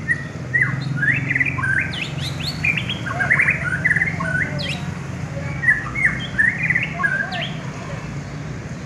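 White-rumped shama (murai batu) singing a fast, varied run of chirps, short whistled sweeps and rapid trills, over a steady low hum.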